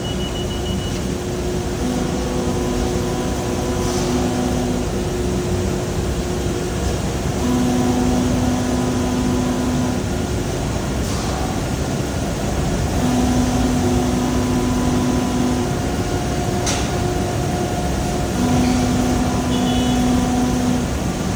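Vertical baler's hydraulic power unit running steadily, with a deeper hum that comes in for two to three seconds at a time, four times over.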